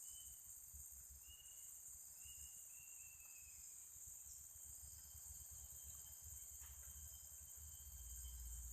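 Faint, steady high-pitched insect chorus, with a few short faint chirps in the first few seconds and a low rumble underneath.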